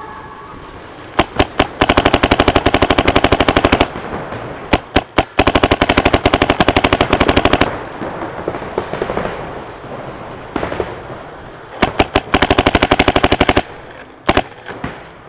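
Paintball gun firing rapid, evenly spaced strings of shots. A few quick single shots are followed by a string lasting about two seconds, and the pattern repeats twice more, the last string shorter. Another couple of single shots come near the end.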